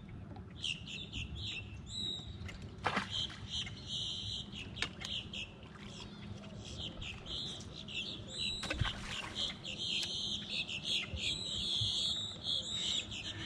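A chorus of small birds chirping and twittering steadily in high, quick notes, with a couple of sharp knocks, one about three seconds in and one near nine seconds.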